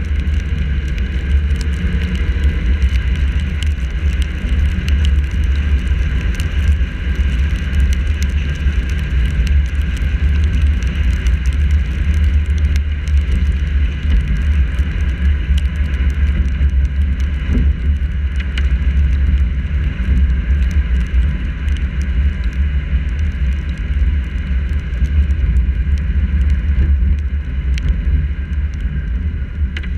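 Car driving on a wet road, heard through a GoPro mounted on the hood: a steady low rumble of road, engine and wind on the camera housing, with scattered faint ticks of raindrops.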